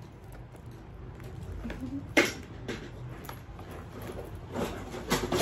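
Handling noise from a handbag being lifted and moved about: scattered soft rustles and light clicks, the sharpest about two seconds in and a few more near the end, over a low room hum.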